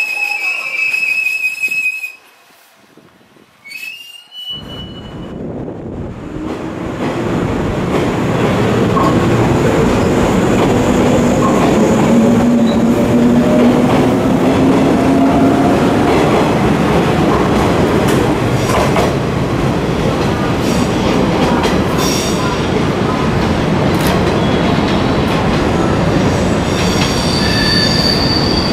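Green JR West 103 series electric train running close past the platform, its wheels rumbling over the rail joints and its traction motors whining upward in pitch as it gathers speed. About two seconds in the sound briefly drops away before the train comes in. Near the end, high steady squealing tones set in.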